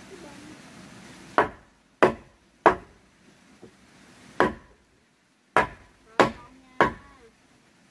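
A block of wood striking the planks of a wooden floor: seven sharp knocks, three about half a second apart, one on its own, then three more.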